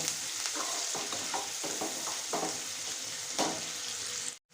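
Chopped onion and capsicum sizzling in hot oil in a pan while a spatula stirs and scrapes them in repeated strokes. The sound cuts out abruptly for a moment near the end.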